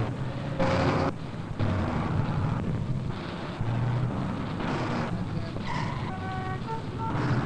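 Busy city-street traffic noise: car and truck engines and tyres, cut together in abrupt jumps. A car horn honks a few short times about six seconds in.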